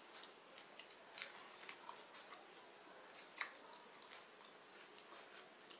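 Faint eating sounds from a person eating pakhala: soft chewing and lip-smacking clicks, with one sharper click about three and a half seconds in.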